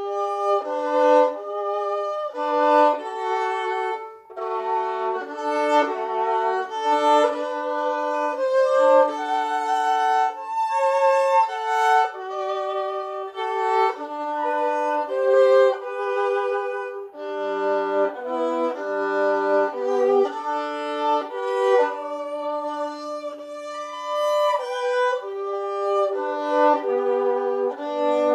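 Solo violin bowed, playing a continuous melody of separate notes, some short and some held, with a couple of low notes about two-thirds of the way through.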